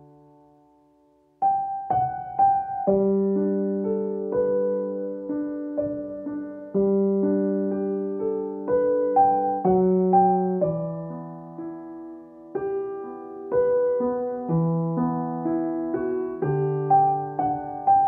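Calm, slow piano music. A held chord dies away almost to silence, then about a second and a half in a new phrase starts with repeated higher notes over ringing lower chords.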